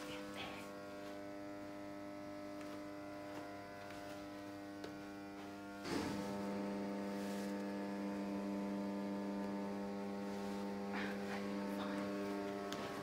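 Steady electrical hum of machinery, a drone of several tones at once. About six seconds in there is a click, and the hum becomes louder with its lower tone stronger.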